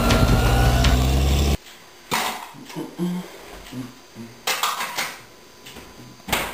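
A small hatchback car's engine runs as the car drives by, then cuts off abruptly about a second and a half in. After that come clattering knocks of dishes and pans being moved about in a kitchen cupboard, five or so separate clatters.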